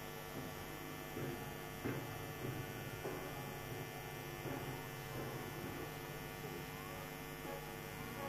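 Steady electrical hum, with a few faint knocks.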